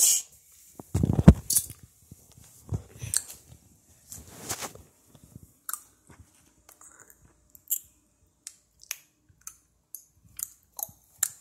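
Scattered short clicks and crunches close to a phone's microphone, with a heavy thump about a second in: mouth and handling noises from holding the phone up to the face.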